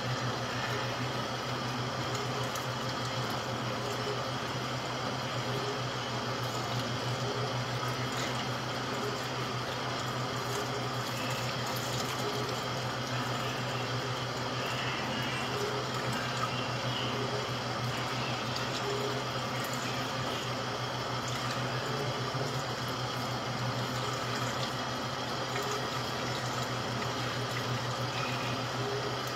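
Tap water running steadily from a sink faucet onto a hand-held mesh strainer, with a steady low hum underneath.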